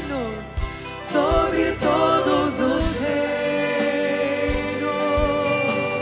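Voices singing a devotional hymn together, a woman's voice on a microphone among them, over instrumental backing with a few low bass thumps. About halfway through, the singers settle onto one long held note.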